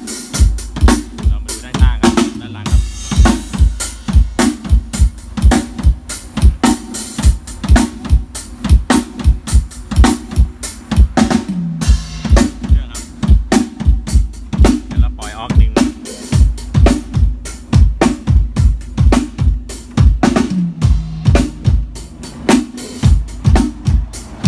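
Drum kit sound-checked through a large outdoor PA system: a steady run of bass drum and snare hits, about four a second, with a heavy low end.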